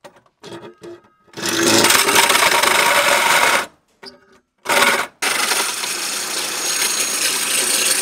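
Power drill driving a hole saw through the sheet-steel body panel of a VW T6, with a loud grinding rasp. It cuts for about two seconds starting a second and a half in, stops, gives a short burst near five seconds, then cuts steadily from then on.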